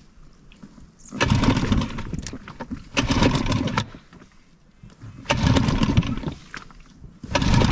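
A small outboard motor on a dinghy being pull-started, running in three short rough bursts with quieter gaps between.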